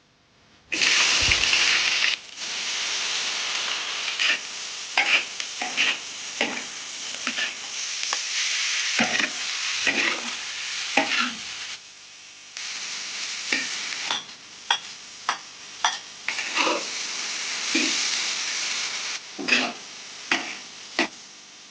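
Food dropped into hot oil with a sudden loud sizzle just under a second in, then frying steadily while a metal spatula scrapes and clacks against the pan many times as it is stir-fried.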